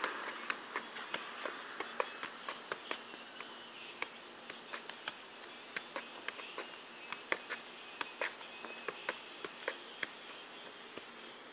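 Soccer ball being juggled, the foot and knee tapping it with a sharp tap every half second or so. A faint steady high buzz sits underneath.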